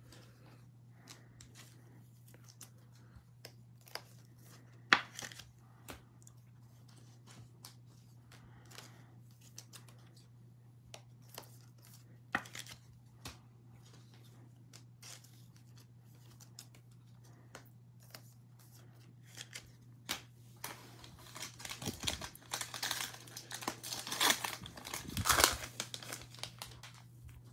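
Scattered light taps and clicks, then, near the end, the foil wrapper of a Mosaic football card pack being torn open by hand with a stretch of crinkling and tearing. A steady low hum runs underneath.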